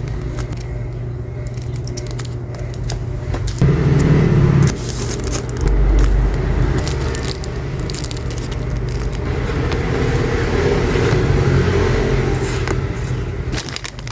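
Packaging being handled during an unboxing: crinkling, crackling and scraping, over a steady low background hum.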